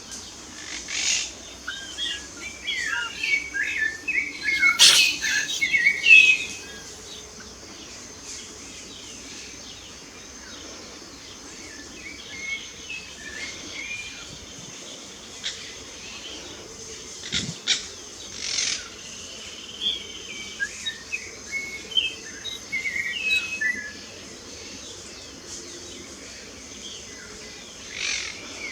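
Several songbirds chirping and singing, with dense, overlapping calls for the first six seconds or so, then scattered chirps and short phrases.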